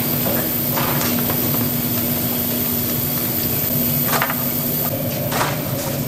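Restaurant kitchen background: a steady machine hum with hiss, and three short clatters of kitchenware, about one second in, around four seconds in and near the end.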